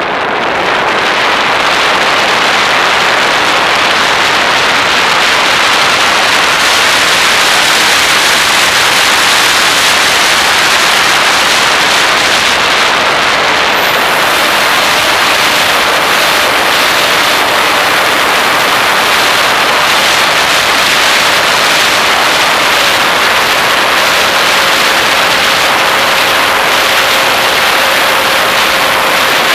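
Airflow and motor noise from a model airplane in flight, picked up by its onboard camera's microphone: a loud, steady rush of air. A thin high whine comes in about halfway through, and a faint steady lower hum joins later.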